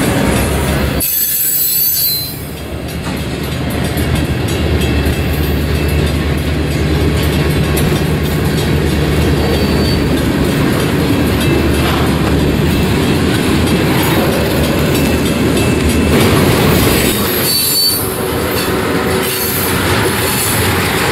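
Freight train of tank cars rolling past: a steady rumble of steel wheels on rail, with brief high-pitched wheel squeals a few times.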